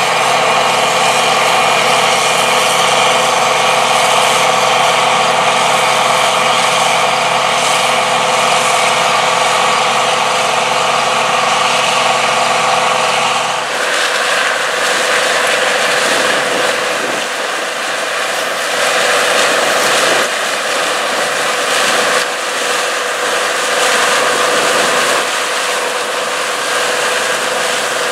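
International 1460 Axial-Flow combine running steadily while harvesting soybeans, with an even engine hum. About halfway through the sound changes abruptly to the same combine harvesting corn, a brighter, rougher rush of machinery with less low hum.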